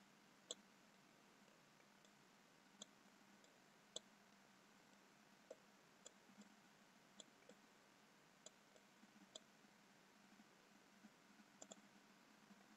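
Near silence broken by about a dozen faint computer mouse clicks, spaced irregularly, roughly a second apart, over a faint steady hum.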